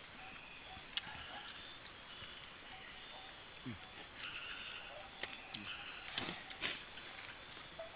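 Steady chorus of crickets and other night insects, a continuous high trill, with a few faint clicks and taps scattered through it.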